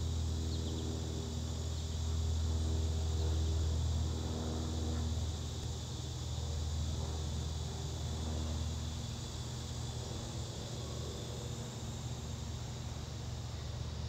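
Outdoor background: a steady high insect chirring over a low engine-like hum, whose pitched overtones fade out about nine seconds in.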